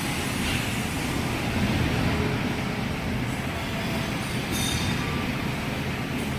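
A metal lathe running with steady machining noise and a low hum, with a brief high hiss about four and a half seconds in.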